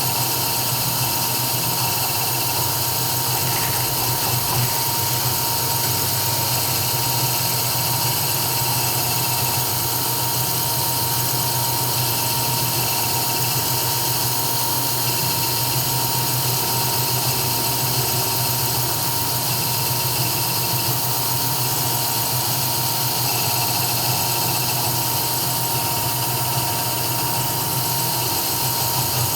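CNC 3040 engraving router running steadily through an engraving job, its spindle giving a constant high whine over a steady low hum.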